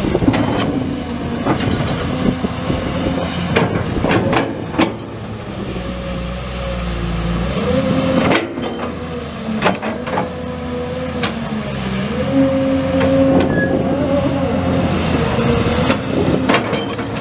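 Excavator's Cummins six-cylinder turbo diesel running, with a whining tone that steps up and down in pitch as the load changes. Scattered clanks and knocks sound throughout.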